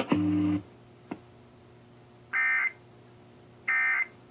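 A steady electrical hum cuts off with a couple of clicks about half a second in. Then two short bursts of shrill Emergency Alert System data tones, a bit over a second apart, come over the radio: the end-of-message code that closes the monthly test.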